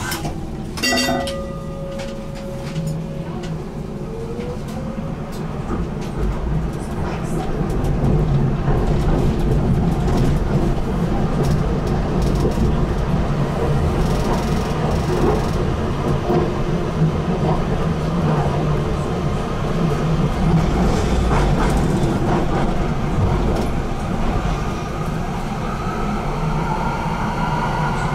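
BN GTL8 articulated tram running on its rails, with a steady rumble and wheel noise that grows louder about seven seconds in. A short ringing tone sounds about a second in, and the electric traction motors give a rising whine near the end.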